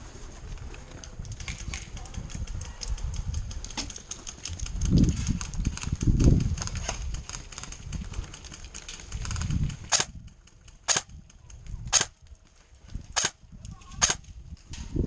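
Airsoft gun shots: a busy run of sharp clicks and cracks with a few heavy low thumps, then single semi-auto shots about one a second near the end.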